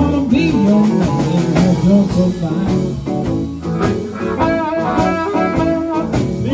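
Live blues band: a harmonica cupped to the microphone plays a line of notes that bend up and down, over electric guitar, bass and drums.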